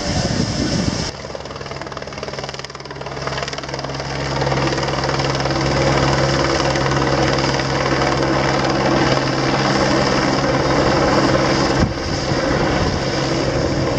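Light single-rotor helicopter flying past: a steady rotor and engine drone with a constant low hum, setting in abruptly about a second in and growing louder a few seconds later as it comes nearer.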